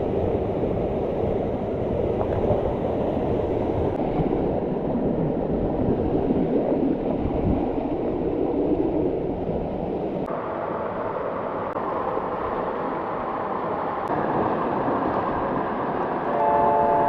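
Steady rush of a mountain stream and waterfall, a dense noise that shifts in tone abruptly twice. A few music notes come in near the end.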